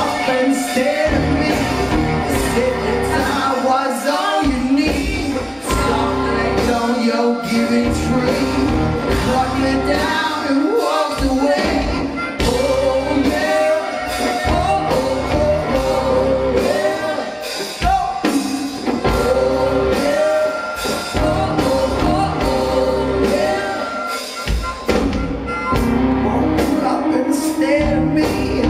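Rock band playing live and loud: drums, bass and electric guitar, with singing over them.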